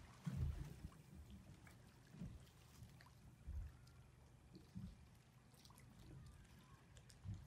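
Faint, low, irregular thuds of a small boat rocking on the sea, coming every second or two over a quiet hiss of water.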